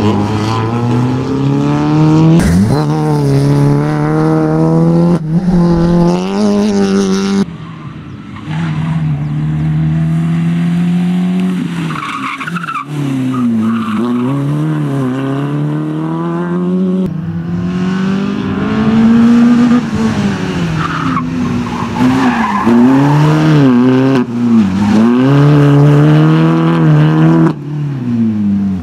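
Peugeot 206 rally car's engine revving hard, the pitch climbing and dropping again and again as it accelerates, shifts and brakes through tight corners, with tyres squealing.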